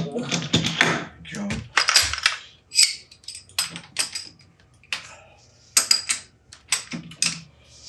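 Metal clanks and clinks of lathe chucks being handled: the heavy chuck just pulled off the spindle is set down and the 5C collet chuck fitted onto the spindle nose. A dense clatter in the first couple of seconds gives way to separate sharp metallic clinks.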